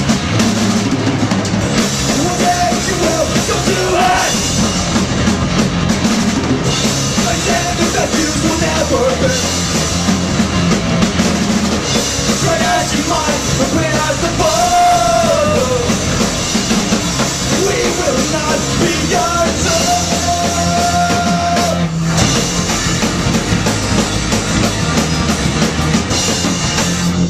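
Punk rock band playing live: electric guitar, electric bass and a drum kit, with sung vocals.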